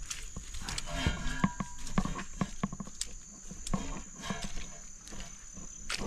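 Irregular footsteps and scuffs on a muddy forest trail, over a steady high-pitched insect drone.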